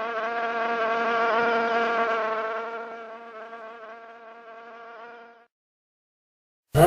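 A flying insect buzzing in a steady, even drone that swells and then fades away over about five seconds. A loud howl cuts in right at the end.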